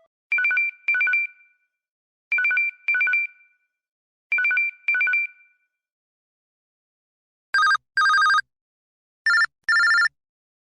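LG KG300 mobile phone ringtones. First an electronic telephone-style ring sounds three times, each a quick double ring about two seconds apart. After a pause comes a different ringtone of two pairs of longer two-tone beeps.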